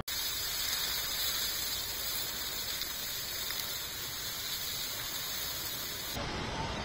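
Forest fire burning through pines and scrub: a steady crackling hiss of burning vegetation that cuts off about six seconds in.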